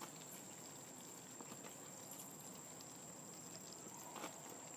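Near silence: faint outdoor background hiss with a steady thin high tone, and a faint knock about four seconds in.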